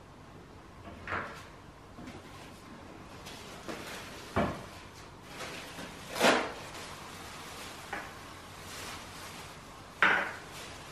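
Kitchen handling sounds at the sink: about five separate knocks and clatters of dishes and kitchenware, a couple of seconds apart, one of them a dull thud about four seconds in.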